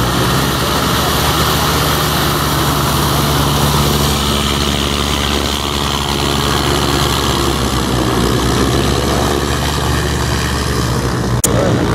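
Light propeller aircraft's piston engine running steadily at low power, a continuous drone with a hiss over it. A single sharp click comes near the end.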